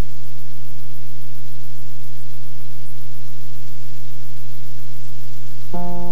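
Loud steady hum with a layer of hiss, unchanging. Just before the end, piano notes start playing.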